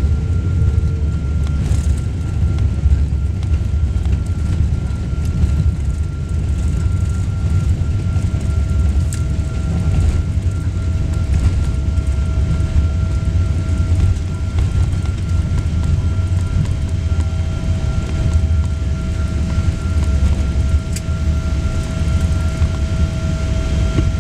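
Cabin noise inside a Boeing 777-200 rolling on the ground after landing: a steady low rumble from the engines and the rolling airframe, with two faint steady tones, one high and one lower, the lower one growing clearer about halfway through.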